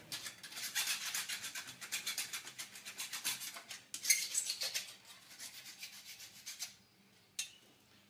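Hand file rasping in rapid back-and-forth strokes over the freshly sawn cut edges of a metal cable tray, deburring them. The filing comes in two runs, stops about seven seconds in, and a single click follows.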